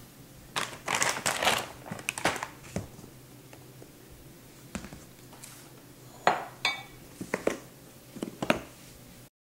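Kitchen handling noises: a run of scraping and rustling bursts, then several sharp knocks as a plastic flour canister is moved and set down on a stone countertop.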